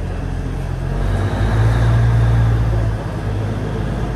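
Alishan Forest Railway train's diesel engine running with a steady low hum and rumble, swelling louder for about two seconds in the middle before settling back.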